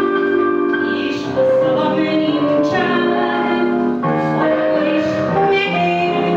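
Woman singing a Hungarian magyar nóta through a microphone over instrumental accompaniment, holding long notes.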